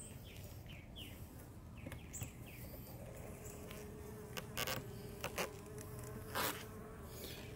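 Honeybees buzzing around an open hive, one droning steadily close by from about three seconds in. A few brief knocks of the hive parts being handled come in the second half.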